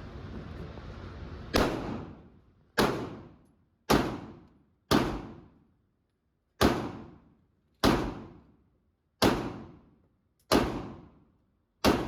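Nine pistol shots fired one at a time at a steady pace, about one every second or so, each crack followed by a ringing echo that dies away. Before the first shot there is a short stretch of steady noise.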